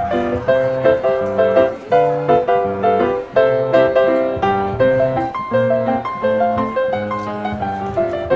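Background music played on piano: a light tune of short notes in a steady beat.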